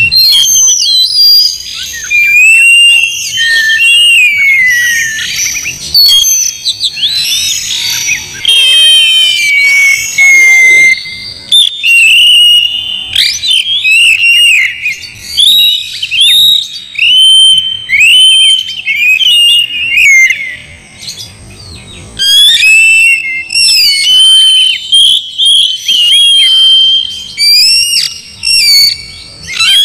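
Oriental magpie-robin singing loudly: a long run of varied whistled phrases and chirps that rise and fall in pitch, broken by short pauses.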